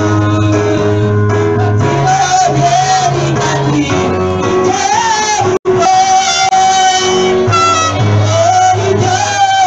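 Live gospel worship music: voices singing a melody over a band with steady held bass notes. The sound cuts out for an instant about five and a half seconds in.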